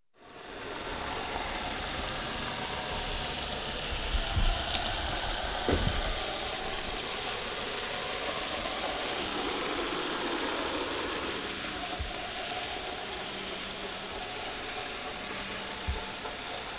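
Union Mills N gauge Prince of Wales 4-6-0 model locomotive running round a test track with coaches: a steady whirring rattle of its small motor and wheels on the rails, with a few low thumps.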